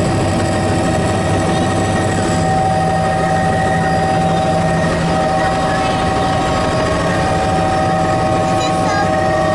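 Helicopter in flight heard from inside the cabin: a loud, steady drone of turbine and rotor noise with steady whining tones over it.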